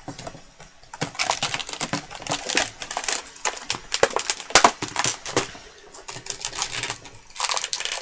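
Scissors cutting the ties on a toy play set's packaging while stiff plastic packaging crackles and rustles, a dense run of irregular clicks and crackles that starts about a second in and eases off near the end.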